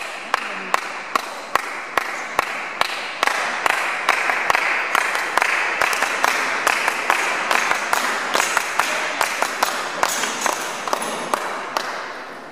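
Spectators applauding between points, with loud single hand claps close by about three times a second; the applause dies away near the end.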